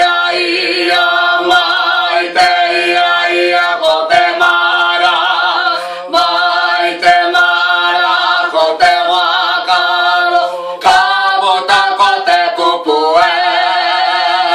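Unaccompanied group singing of a Māori pao, a traditional chanted song, with women's voices to the fore. Long held notes are sung with a wavering vibrato, broken by short breaths between phrases.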